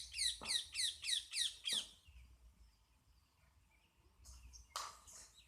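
High-pitched animal chirps: a quick run of about seven falling chirps in under two seconds, then one more sharp call near the end.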